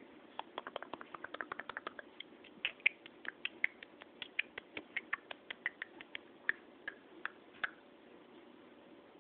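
A quick, irregular run of small mouth clicks and kissing squeaks, several a second, with some of the clicks carrying a short squeaky tone. They stop about three quarters of the way through.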